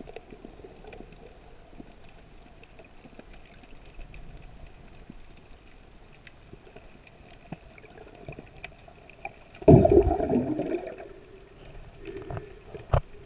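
Underwater sound from a snorkeler's camera: a faint steady hum with scattered small clicks, then a loud burst of rushing, gurgling water about ten seconds in that fades over a second or two.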